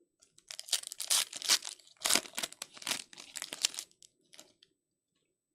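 A trading card pack wrapper being torn open and crinkled in the hands, a run of rustling, tearing crackles lasting about three and a half seconds that then stops.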